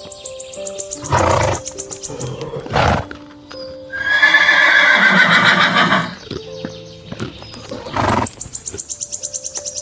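Horse whinnying: one long, loud call in the middle with a slowly falling pitch, plus shorter calls, over background music. Quick regular clicks run near the end.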